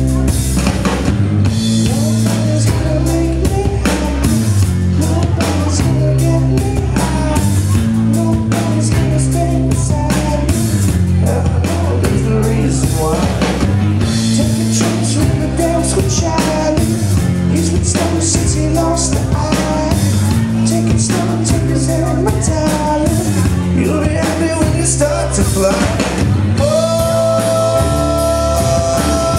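Live rock band playing: electric guitars, bass and drum kit with a steady beat, and a singer's voice over them. A long note is held near the end.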